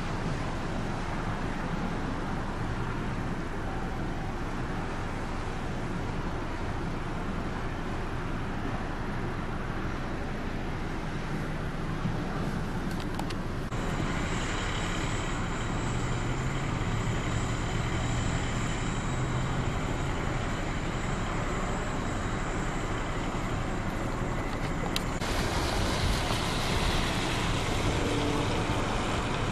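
Steady road traffic noise with vehicle engines running. The sound changes abruptly a little before halfway and again near the end.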